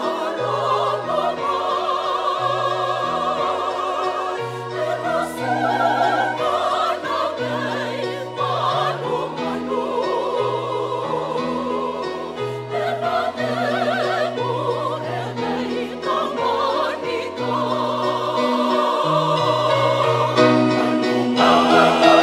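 Mixed church choir of women's and men's voices singing in parts, with sustained, wavering notes over a moving bass line. The singing grows louder near the end.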